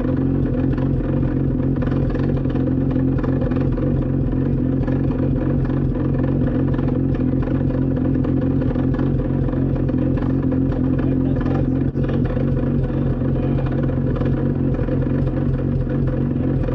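Two-rotor Mazda rotary engine of a Pro Formula Mazda racecar running loud and steady at a constant engine speed, with a momentary drop about twelve seconds in.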